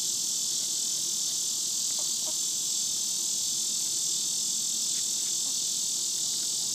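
Steady, high-pitched chorus of insects buzzing and shrilling without a break.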